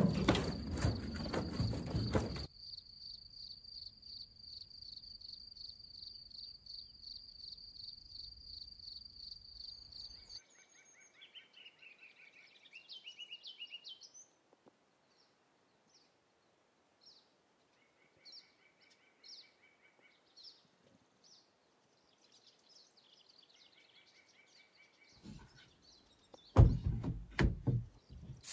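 Outdoor nature sounds: a steady, high, pulsing insect trill for several seconds, then scattered bird chirps and calls. A few louder knocks and rustles come near the end.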